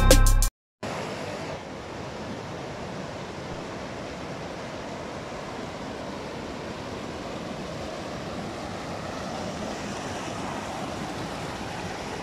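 Mountain stream rushing over rocks, a steady even noise of running water. A burst of music cuts off about half a second in, just before the water sound begins.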